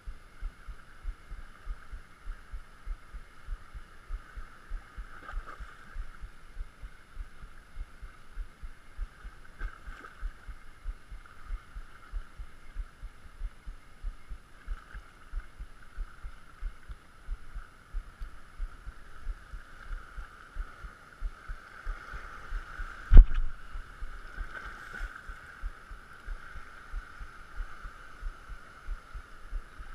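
Spinning reel being cranked on a lure retrieve: a steady low thumping, about two to three a second, over water washing against the rocks. One sharp knock, the loudest sound, comes about three quarters of the way through.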